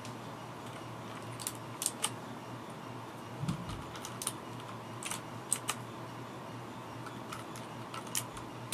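Keycaps being pulled off and pressed onto the Cherry MX Blue switches of a Filco Majestouch 2 keyboard: a dozen or so sharp plastic clicks at irregular spacing, with one duller thump about three and a half seconds in. A faint steady hum runs underneath.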